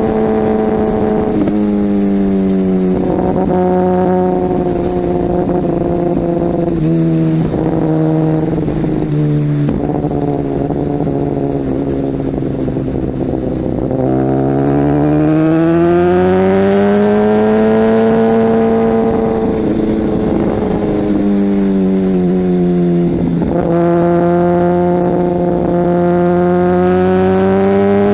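Kawasaki ZX-10R inline-four engine through a Mivv aftermarket exhaust while riding. The engine note holds steady with several brief breaks for gear changes in the first ten seconds, rises smoothly in the middle, then falls and breaks once more a few seconds before the end.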